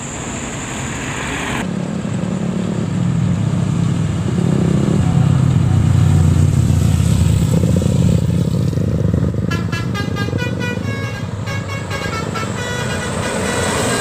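Heavy engine and road rumble from passing traffic. From about two-thirds of the way in, a telolet-style multi-tone bus horn (Basuri) plays a quick melody of short stepped notes.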